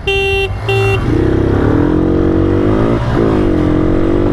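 Two short motorcycle horn beeps, the end of a three-beep race start signal, then a Bajaj Pulsar N160's single-cylinder engine revs up under hard acceleration from a standing start, its pitch rising and dipping at a gear change about three seconds in.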